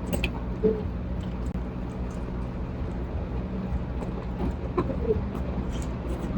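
Street background sound: a steady low hum of traffic or idling engines, with faint distant voices and a few light clicks.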